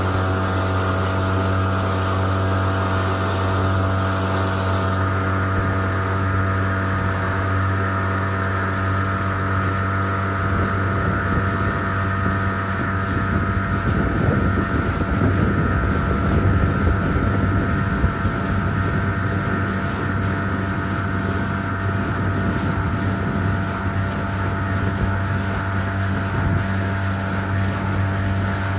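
A Gheenoe's outboard motor running underway at a steady speed, with a steady drone. The rush of wind and water grows noisier for a few seconds about halfway through.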